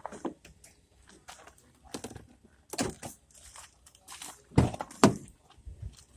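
Irregular knocks and thumps in a small room, the loudest two coming close together about four and a half seconds in.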